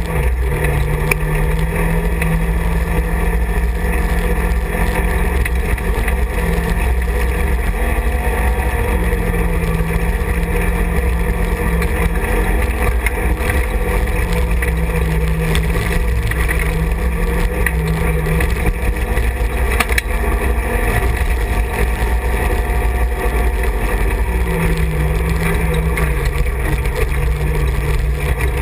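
Side-by-side UTV engine running under way on a rough trail, a steady drone whose pitch drops and climbs back several times as the throttle changes, with a few knocks from the bumpy ground.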